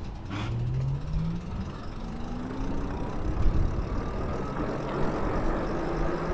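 Lyric Graffiti e-bike's electric motor whining while riding, its pitch rising in a couple of steps as the bike picks up speed, over a steady low rumble of wind and road noise.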